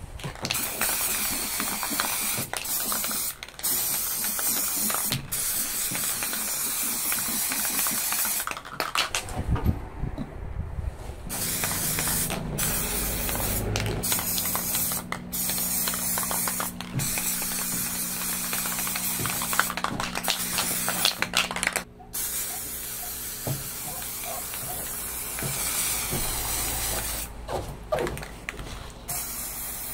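Aerosol spray paint can hissing in a series of bursts with short breaks between them, spraying paint onto a metal guitar pedal enclosure.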